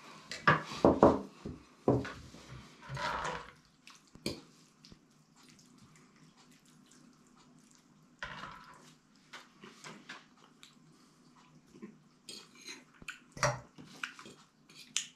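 Clatter of dishes and cutlery: a plate set down on the table and serving spoons scraping rice and stew from a bowl and a pot onto plates. There are loud knocks in the first few seconds, then lighter clinks of forks on plates.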